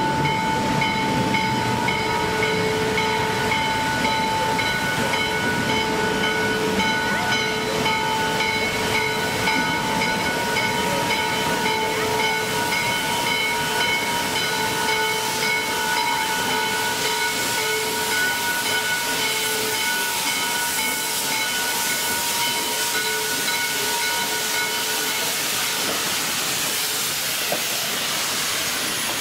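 Steam locomotive 1309, a Baldwin-built 2-6-6-2 Mallet, hissing steam as it eases along, with a steady high whine underneath. The whine fades out near the end as the hiss grows brighter with the engine close by.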